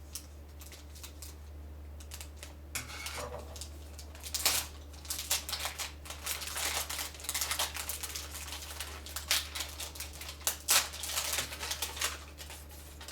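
Packaging being handled and opened: irregular rustling and crinkling with sharp clicks and taps, busiest from about three seconds in, over a steady low electrical hum.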